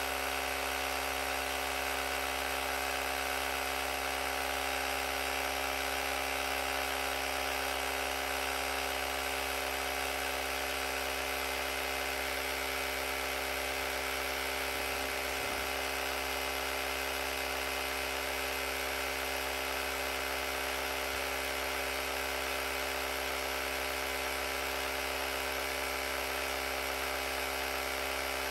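AUTOOMMO cordless tire inflator's compressor running steadily, pumping up a flat motorcycle front tire. The hum holds a constant pitch and level throughout.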